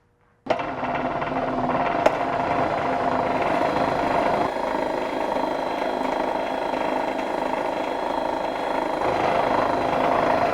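Power drill running steadily, driving a Bluedog BWS-38-MF-DA wire stripping machine as 10 gauge stranded wire feeds through and its blade slits the insulation. The sound starts suddenly about half a second in, with a single sharp click about two seconds in.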